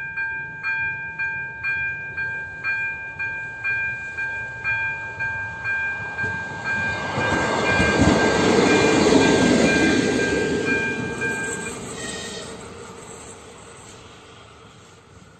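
Level-crossing electronic warning bell ringing in even strokes, about one and a half a second, while a ČD Regionova (class 814/914) diesel railcar unit passes over the crossing, loudest for a few seconds in the middle. The bell stops about twelve seconds in, leaving the train's sound fading away.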